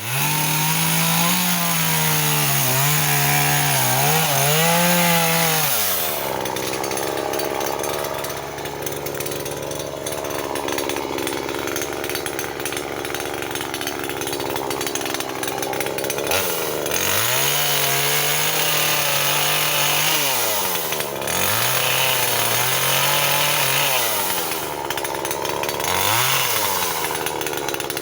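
Two-stroke chainsaw cutting firewood. It runs at high revs for about six seconds, drops to a lower steady speed for about ten seconds, then is revved up and down several times near the end.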